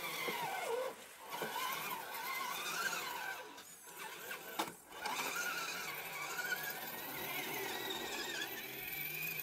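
The electric motor and gearbox of a scale RC crawler truck whine as it crawls uphill, the pitch rising and falling with the throttle. The whine drops away briefly a few times, near one second in and twice around four to five seconds in.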